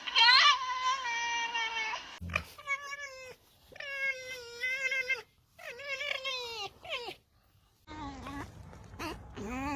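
Fox giving a series of drawn-out, wavering cries, about six in a row with short gaps, the last ones lower in pitch.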